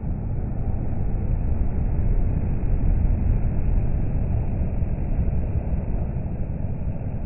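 Volvo FH articulated lorry passing close on a motorway: a low rumble of engine and tyres that swells about two seconds in and then eases, over steady traffic noise.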